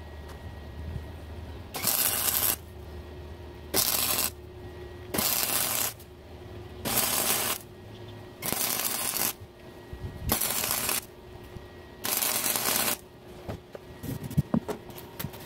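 Wire-feed welder arc crackling in seven short bursts, each under a second, as a series of tack welds is laid on a steel bolt. A few sharp metallic clicks follow near the end.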